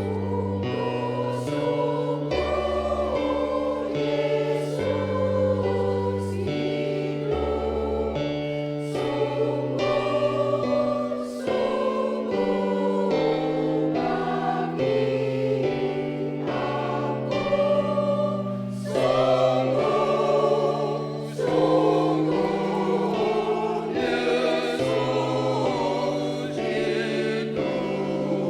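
Church choir singing a song in harmony, several voice parts at once, with low sustained notes changing every second or two beneath.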